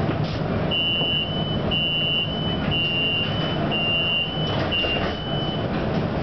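Streetcar door warning chime at a stop: five high two-tone beeps, about one a second, over the steady low hum of the standing car.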